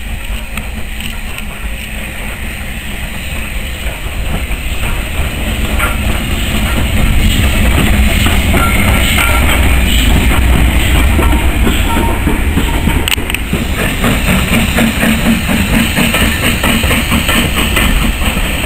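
Steam train passing close by: BR Standard Class 9F locomotive No. 92203 and its coaches. The sound is a low rumble that grows louder about six seconds in as the locomotive comes level, then carries an even run of exhaust beats.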